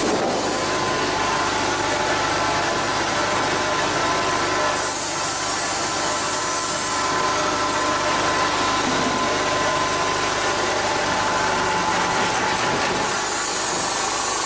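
Automatic food packaging machine running, a steady mechanical clatter with a faint steady whine.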